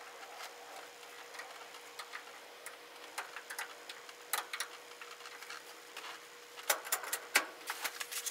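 Scattered small clicks and taps of hand tools and small parts being fitted at the top of a bare steering column while a turn signal switch is installed, coming thicker near the end, over a faint steady hum.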